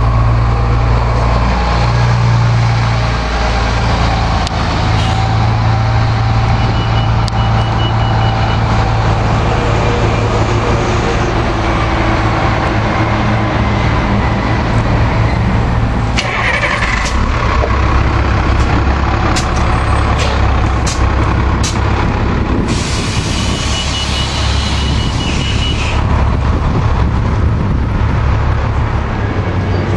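City transit bus diesel engine running steadily, with a loud hiss of air brakes releasing air for about three seconds near the end. Faint repeated beeping comes in twice.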